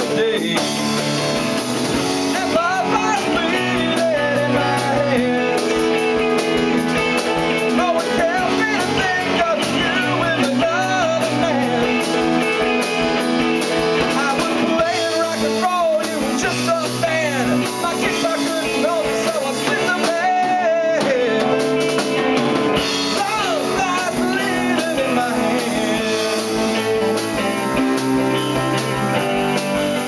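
Live rock band playing: electric guitar, drum kit and a Casio Privia digital piano, with bending, wavering melody notes over a steady beat.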